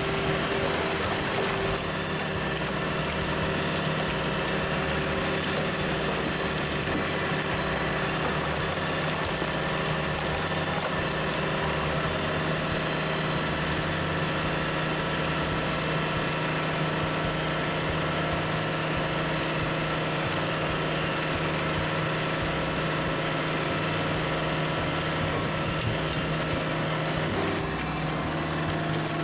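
Super Splitter log splitter's 80 HP engine running steadily under work, its pitch shifting slightly near the end.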